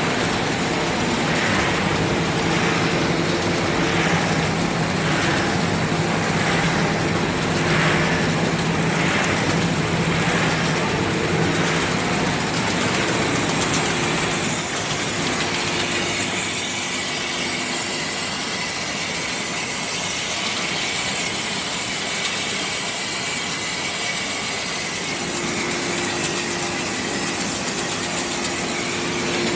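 Snack extrusion line machinery running steadily: a continuous mechanical hum with steady tones in it. Its sound changes about halfway through.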